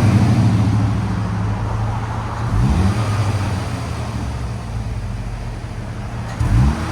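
Pontiac Solstice 2.4-litre inline-four idling steadily through its stock exhaust, with a brief rise in pitch about two and a half seconds in.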